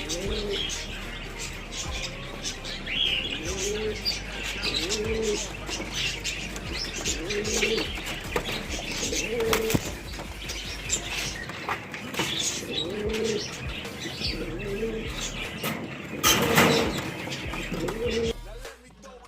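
Pigeons cooing, a low rolling coo repeated every second or two, with higher bird chirping over it. A loud burst of wing flapping comes about sixteen seconds in.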